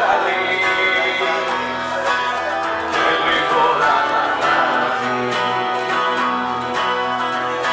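Acoustic guitar strummed live, with a man singing over it.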